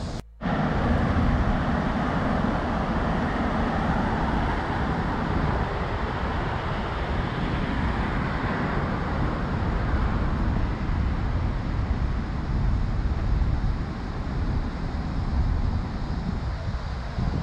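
Road traffic noise from nearby streets and the bridge above: a steady rumble of cars, with one vehicle swelling past about eight seconds in.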